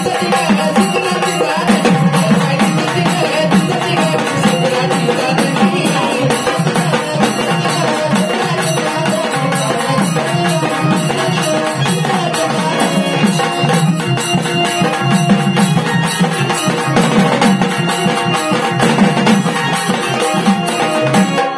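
Live Marathi devotional folk music: an instrumental passage, a sustained melody over steady, dense percussion.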